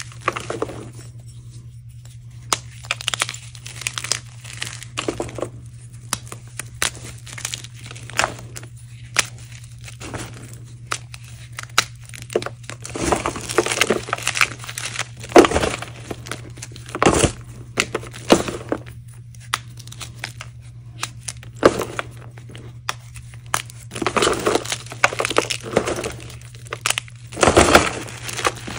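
Dried-hard chalk reforms crunching and crumbling as hands crush and squeeze the pieces, in irregular crunches with denser, louder bursts about halfway through and again near the end, over a steady low hum.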